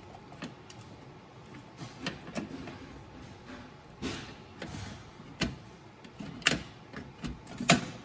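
Scattered sharp clicks and knocks of an NVIDIA Tesla P100 GPU card being worked and seated into the x16 slot of a server GPU riser card, sparse at first and coming more often in the second half, the loudest near the end.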